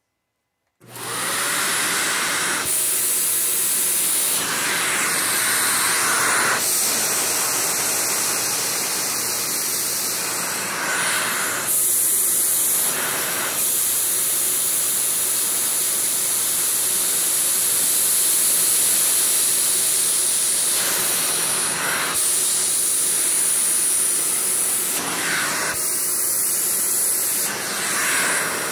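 Vacuum cleaner switching on about a second in and running steadily over carpet, sucking up leftover diamond painting drills (small plastic dots). Its sound shifts every few seconds as it is worked back and forth.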